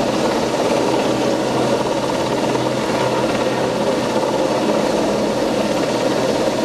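Westland Sea King helicopter hovering low overhead: a loud, steady rotor and turbine noise that stays unchanged throughout.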